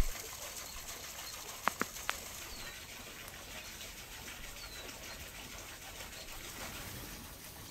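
Quiet outdoor ambience: a steady faint hiss, a few sharp clicks about two seconds in, and a couple of faint short bird chirps.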